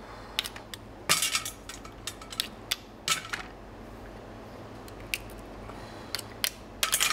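Irregular clicks and clinks of a metal spoon against steamed mussel shells as the meat is scooped out, the shells knocking on a stainless steel tray. The sharpest clusters come about a second in, around three seconds in and near the end.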